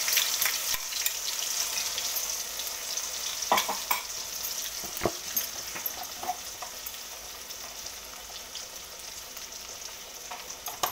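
Food frying in mustard oil in a pan, a steady sizzle that grows gradually quieter, with a few knocks of the stirring spoon against the pan about midway.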